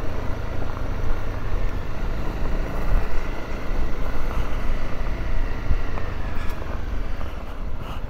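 Honda CRF250 Rally's single-cylinder engine running at a steady pace while riding a gravel dirt road, with a steady rushing noise of wind and tyres on loose gravel over it.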